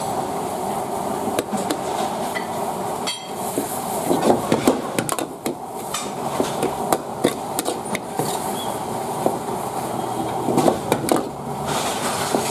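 Long metal ladle knocking and scraping against a large metal wok in runs of quick clanks, over a steady sizzle of beef and vegetables stir-frying.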